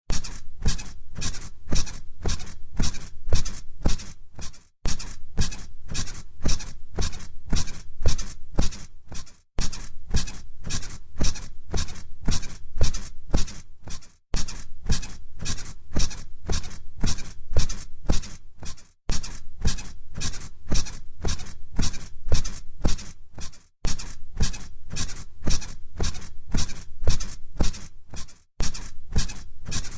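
Bed springs and mattress squeaking rhythmically under bouncing, about two squeaks a second, each with a low thump. The pattern repeats as a loop, with a brief gap about every five seconds.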